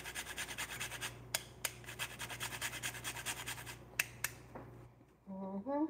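Nutmeg being rubbed across a handheld rasp grater: a run of rapid scraping strokes that thins out and stops about a second before the end, with a few sharp clicks along the way.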